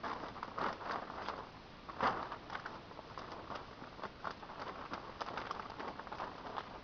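6 mil plastic sheeting being handled, crinkling and rustling in irregular bursts with small clicks.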